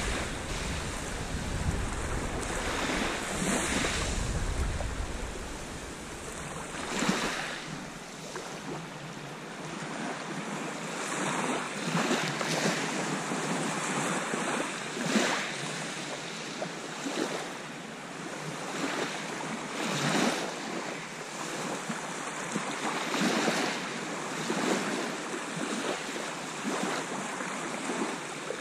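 Small waves washing in over a shingle beach, each wash swelling and falling away every couple of seconds. Wind buffets the microphone for the first few seconds, then drops away.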